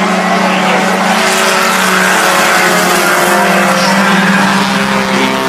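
Several Thunderstock race cars' engines running at speed on an asphalt oval, their engine notes overlapping and holding steady.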